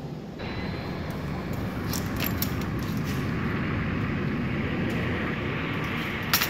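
A passing engine's rumble that swells over several seconds and then eases, with a few light clicks of the pet carrier's wire door being handled and a sharp knock near the end.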